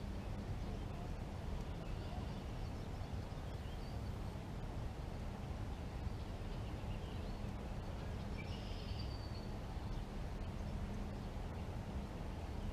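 Steady low outdoor background rumble with a few faint bird chirps, the clearest about eight and a half seconds in.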